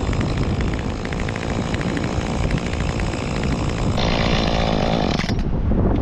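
Gas chainsaw running, getting louder and higher about four seconds in, then cutting off a little after five seconds.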